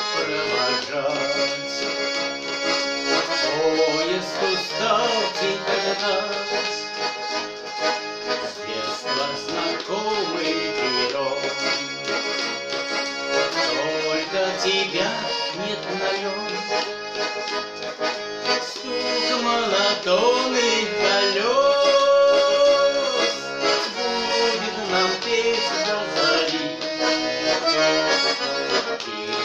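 Garmon (Russian button accordion) playing the melody of a Russian song with its accompaniment.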